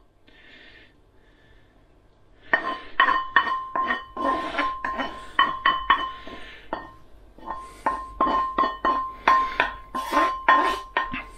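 A spoon scraping and knocking against a frying pan while food is spooned out of it. A faint scrape at first, then from about two and a half seconds a run of quick knocks, two to three a second, each leaving the pan ringing with a steady clear tone.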